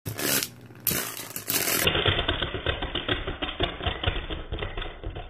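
Two metal Beyblade spinning tops, Flame Sagittario C145S and Dark Wolf DF145FS, spinning and clashing in a plastic stadium: a rapid, irregular clatter of clicks. About two seconds in, the sound turns abruptly duller.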